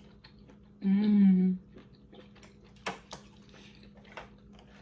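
Close-up mukbang eating sounds: faint mouth smacks and clicks of eating spicy crawfish, with a sharp crack of shell about three seconds in. About a second in, the eater gives one short hummed vocal sound lasting under a second.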